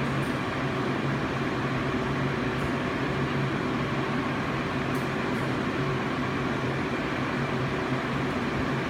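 Steady machine hum with a low steady tone, with a few faint light clicks.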